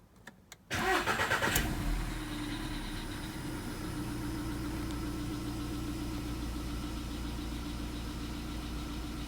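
Volkswagen Polo Sedan's 1.6 CFNA four-cylinder petrol engine cranking and catching on a cold start less than a second in, then settling into a steady fast idle. A slight tapping comes from it, very little, typical of hydraulic valve lifters knocking when cold.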